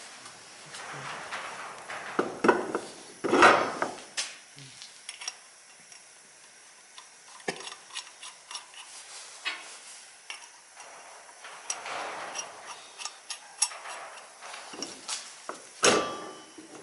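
Metal hand tools clinking, scraping and knocking irregularly, as in work on a car, with a few sharper knocks, the loudest near the end.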